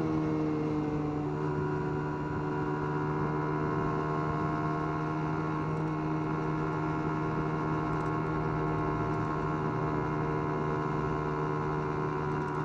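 Small 50cc Dax minibike's single-cylinder engine running at a steady cruising speed, a constant even drone, its pitch shifting slightly about a second in.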